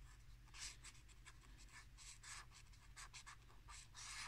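Brush-pen tip dragged across paper in quick, short strokes, about three a second, giving a faint scratchy swish on each stroke.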